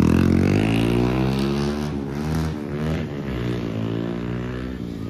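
Bajaj Pulsar 150's single-cylinder engine through an aftermarket Akrapovic exhaust, accelerating away through the gears. Its note rises, drops briefly about two seconds in, rises again, and slowly fades as the bike pulls off.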